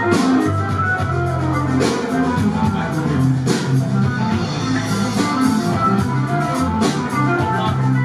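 Anatolian rock band playing live, with no vocals: a stepping bass line, a drum kit with cymbal crashes every second or so, and guitar and keyboard parts.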